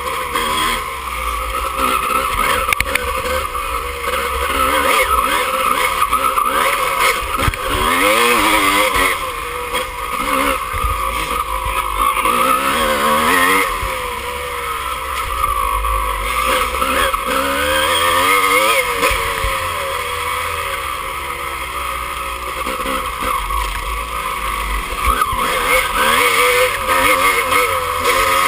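Dirt bike engine revving up and down again and again as it is ridden hard over rough, muddy ground, with a low wind rumble.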